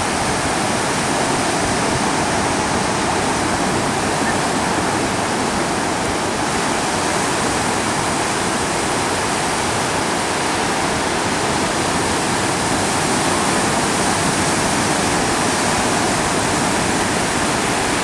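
Ocean surf breaking and washing up on a beach: a steady, unbroken rush of water.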